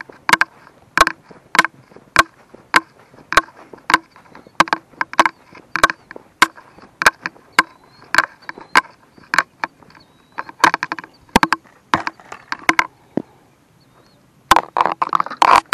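Sharp clicks about twice a second, in step with walking while carrying a spinning rod and reel. They stop briefly near the end, then come thicker with a rustle of handling.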